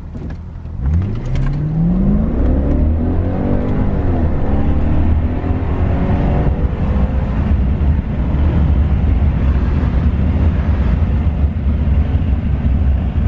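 BMW E60 545i's V8 accelerating hard. The engine note rises through two gears in the first several seconds, then settles into a steady, loud low drone.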